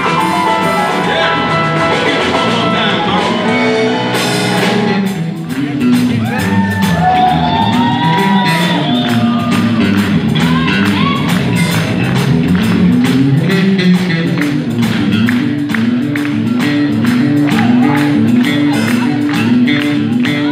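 Live electric blues band playing, with bass line, drum kit, electric guitar and keyboard. About five seconds in, the texture thins to a bouncing bass line, and a lead part bending in pitch plays over it.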